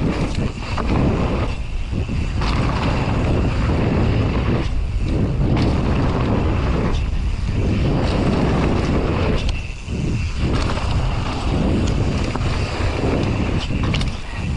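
Wind buffeting the microphone while riding a mountain bike fast down the trail, with clicks and rattles from the bike. The noise drops off briefly several times.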